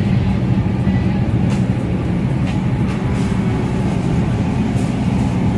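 Steady low rumbling hum of background noise in a busy store, with a few faint clicks.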